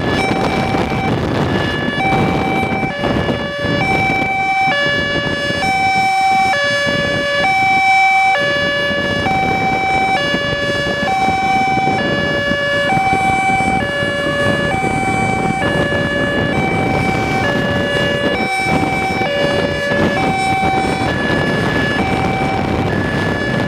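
Two-tone emergency vehicle siren sounding its alternating high-low call, each note held just under a second, over steady road and engine noise from the moving traffic.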